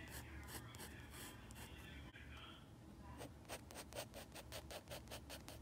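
Graphite pencil scratching on paper while sketching, faint; from about halfway through it turns into quick short strokes, about six a second.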